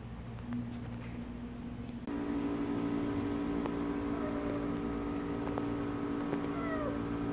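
A steady mechanical hum starts abruptly about two seconds in and runs on evenly, with a few faint, short falling chirps over it.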